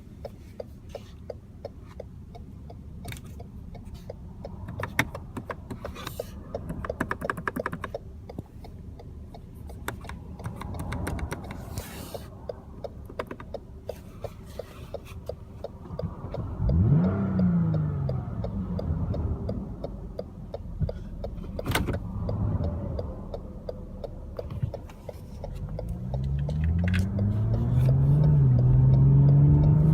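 2013 Lexus GS350's 3.5-litre V6 running, with a brief rise and fall in revs about halfway through, then revs climbing in steps and growing louder near the end; scattered short clicks in the first half. The car has a misfire that flashes the check-engine light.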